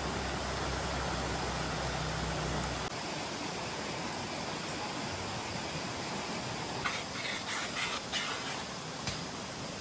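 A steady hiss, with a low hum that stops about three seconds in; about seven to nine seconds in, a few short rustling bursts come from a banana leaf being drawn over a small fire to soften it.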